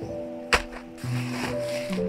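Background music of held, sustained notes, with a single sharp knock about half a second in and a rustling noise over the second half.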